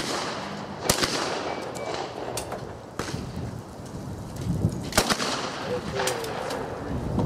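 Shotgun shots at a 5-stand sporting clays range, fired one at a time at irregular intervals, each with a short echo. The loudest come about a second in and about five seconds in, with fainter ones between.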